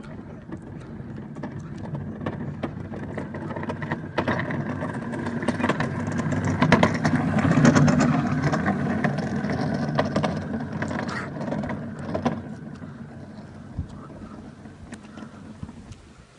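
Wooden soapbox cart rolling on small wheels over asphalt: a rattling rumble that builds as it approaches, is loudest as it passes about eight seconds in, then fades as it rolls away.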